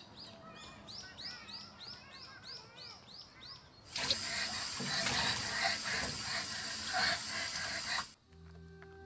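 A bird chirping, a quick run of short falling chirps about three a second. About four seconds in, a tap runs hard into a sink, a loud steady splashing that cuts off suddenly near the end.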